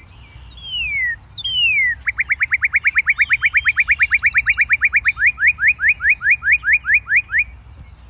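Northern cardinal song from a reference recording: two long down-slurred whistles, then a long run of short, rapidly repeated whistled notes that slows down toward the end before stopping.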